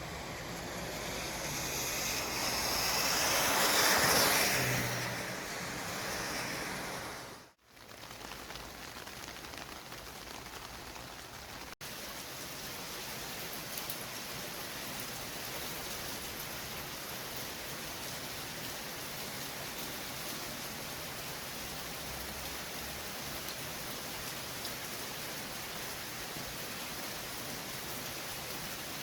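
City street traffic: a vehicle passes close by, its tyre and engine noise swelling to a peak about four seconds in and fading over the next two seconds. The sound cuts out briefly at about seven and a half seconds, then settles into a steady, even traffic hiss.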